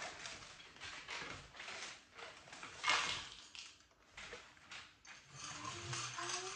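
Rustling of a cereal box's plastic inner bag and cereal pouring into bowls, as a string of short crinkles and pours, the loudest about three seconds in. Near the end a dog starts a faint whine.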